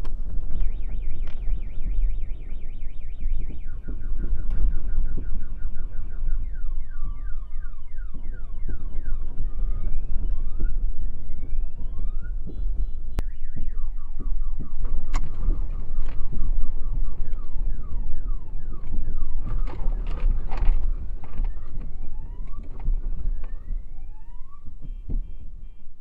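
Car alarms going off, set off by the earthquake's shaking. They cycle through rapid pulsing tones and trains of repeated rising whoops, with the pulsing coming back near the end. Under them is a heavy low rumble with scattered sharp knocks and rattles.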